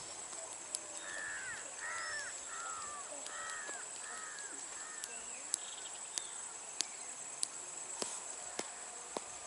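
A bird calls in a quick run of about six arching notes, over a steady high insect-like whine. From about halfway through, sharp hand slaps of a neck and head massage come evenly, a little under two a second.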